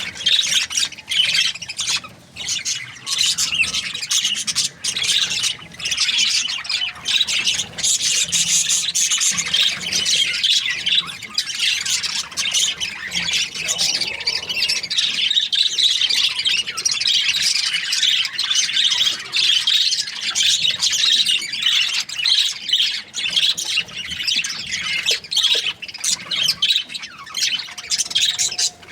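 Budgerigar (budgie) chirping in a busy, continuous high-pitched chatter of quick short notes.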